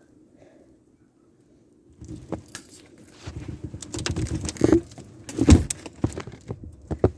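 Near silence, then from about two seconds in rustling with sharp clicks, knocks and thumps as a door is unlatched and pushed open against deep snow; the loudest thump comes about five and a half seconds in.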